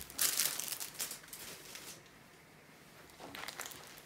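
Crinkling and rustling of a thin clear plastic packaging sleeve being handled, in a few quick strokes over the first second and a half, then a quiet stretch, then a softer rustle near the end as the rolled canvas is picked up.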